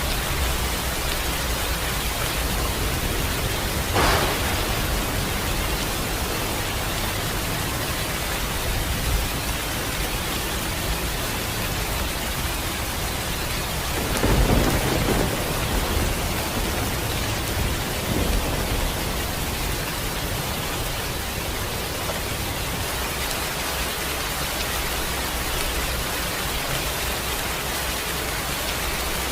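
Steady rain falling, with thunder: a sharp crack about four seconds in, a longer, louder peal around the middle and a smaller one shortly after, over a low rumble that fades in the last third.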